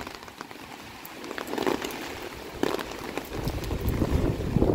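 Gusty typhoon wind buffeting the microphone, with a low rumble that rises about three seconds in, and scattered faint taps.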